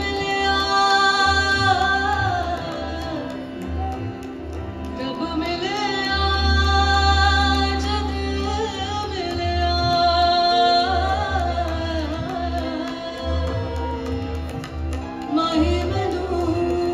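Female vocalist singing live, with gliding, ornamented phrases over sustained harmonium tones and a deep bass that comes and goes underneath.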